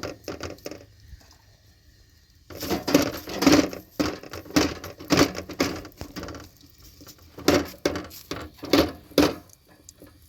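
Irregular knocking and clattering of hard objects, busiest in the middle of the stretch, with a brief lull before it.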